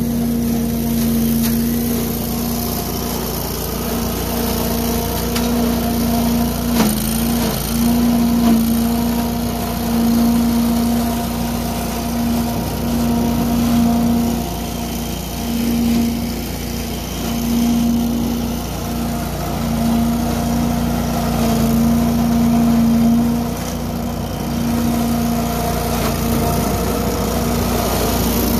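Billy Goat debris loader's 18 hp V-twin engine and fan running steadily while the intake hose vacuums up leaves, a constant hum that wavers and briefly dips every second or two. A single sharp click sounds about seven seconds in.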